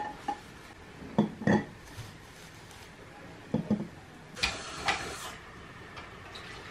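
Eggs being set one at a time into a clay bowl: several light knocks and clinks of egg on earthenware, spaced about a second apart. A short rustling scrape comes about four and a half seconds in.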